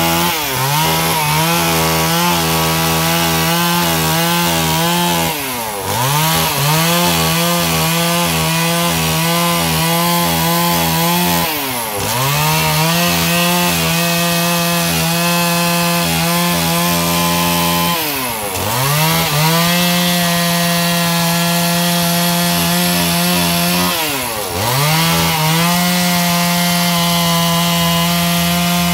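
STIHL two-stroke chainsaw running at high revs while cutting through a teak log. The engine pitch dips sharply and comes back up about every six seconds.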